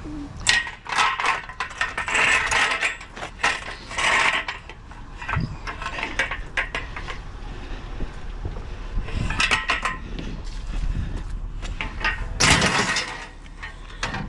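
Steel bed frame clanking and rattling as its pieces are lifted and carried, in several bouts of metal clatter with short pauses between.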